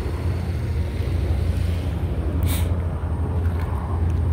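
Wind buffeting the microphone at an open harbour quay: a steady, fluctuating low rumble, with a short rustle about two and a half seconds in.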